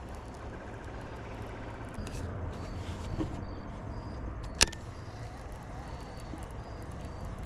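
A steady low rumble, with one sharp click a little past halfway through.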